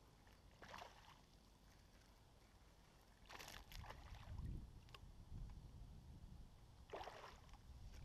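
A few faint water splashes as a hooked bass thrashes at the surface while being reeled in beside the kayak, the main splashing about three to four and a half seconds in and another splash near the end.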